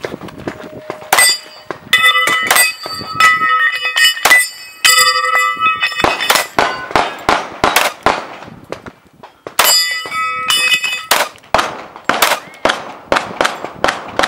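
Pistol shots fired in quick strings at steel targets. Many of them are followed by the clang and ringing of struck steel plates, which rings longest in two stretches, a couple of seconds in and again near ten seconds.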